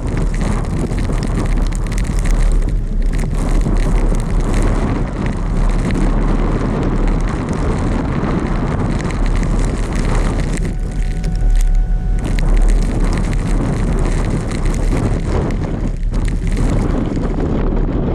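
Wind buffeting the microphone over a steady low rumble from a car driving through a snowstorm. About ten seconds in the noise eases for a moment and a faint steady tone sounds for about a second.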